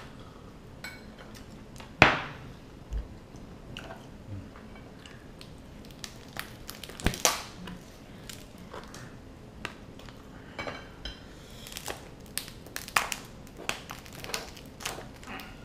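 Whole steamed king crab being torn apart by hand over a metal tray: scattered cracks, snaps and clicks of shell, with a loud knock about two seconds in and another sharp crack about seven seconds in.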